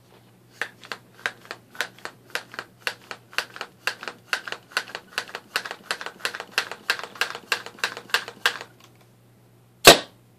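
A homemade pneumatic airgun being hand-pumped about 15 to 20 times: an even run of pump strokes, about four clicks a second, for around eight seconds. Then it fires with one loud, sharp bang near the end.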